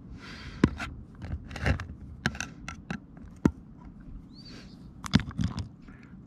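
Metal lid of a can of Flex Seal liquid being pried open with a screwdriver: a series of sharp metallic clicks and scrapes around the rim, with a loud click about half a second in, another about three and a half seconds in and one near the five-second mark.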